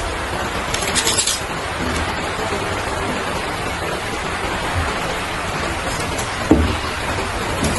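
A steady, even hiss like rain, with a brief burst of sharper high hiss about a second in and a short dull knock near the end.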